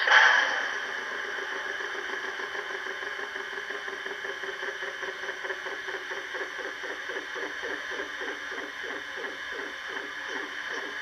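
ESU LokSound V4 sound decoder in an HO-scale 113-series EMU model, playing recorded 113-series standing sounds through its small speaker: a brief loud burst of air right at the start, then auxiliary machinery running with a steady whine and a low, even pulsing of about two to three beats a second.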